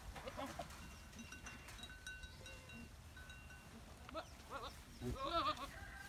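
Goats in a large herd bleating: a couple of faint wavering calls about four and five seconds in, with fainter short high-pitched tones earlier.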